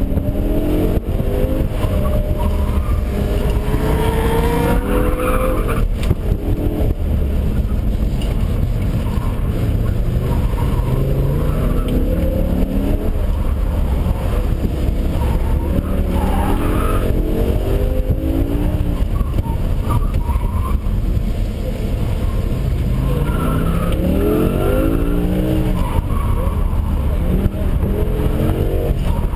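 2006 BMW M5's V10 engine heard from inside the cabin, revving up and dropping back repeatedly as the car is driven hard, with the tyres squealing again and again through the turns.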